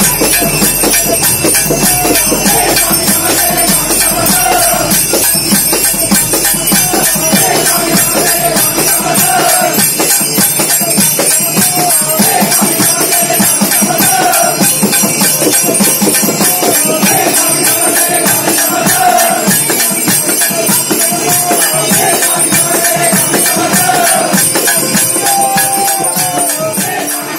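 Devotional bhajan music: a short melodic phrase repeated over and over above a fast, steady jingling percussion.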